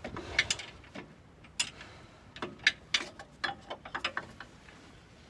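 Metal clicks and clinks from hand tools worked on car suspension parts, with a run of quick clicks, about four a second, through the middle.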